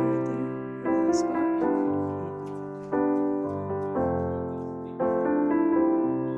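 Background solo piano music: slow chords struck about once a second, each ringing and fading before the next.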